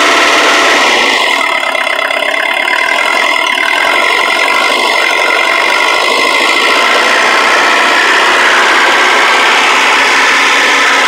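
Mercedes diesel truck engine idling steadily, heard up close in the engine bay.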